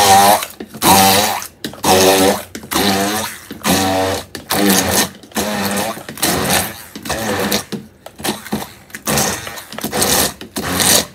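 Electric stick blender pulsed on and off about once a second while chopping chunks of fresh cucumber into a puree in a small plastic cup. Each pulse is a short motor whine whose pitch shifts as the blade works through the chunks.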